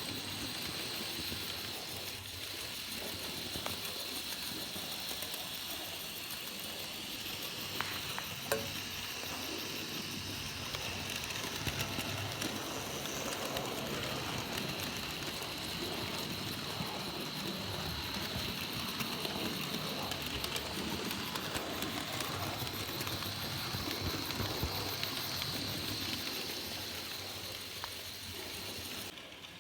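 N gauge model locomotive running along the track: a steady whirring hiss of motor and wheels with a few light clicks, dropping away just before the end.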